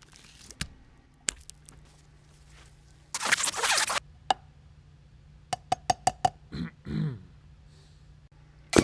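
Jellied cranberry sauce being worked out of a can: a few scattered clicks, then a loud wet sucking squelch about three seconds in, a quick run of short knocks, and a gloopy plop a little after halfway. A faint low hum runs underneath.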